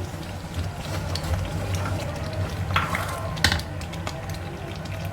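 Metal spatula stirring and scraping a pan of sambal after the coconut milk goes in, with scattered clicks and two sharper knocks against the pan about three seconds in, over a steady low hum.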